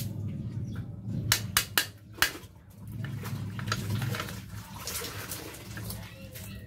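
A few sharp metallic clicks and some scraping from a motorcycle drum brake being worked by hand during a brake shoe change, over a steady low hum.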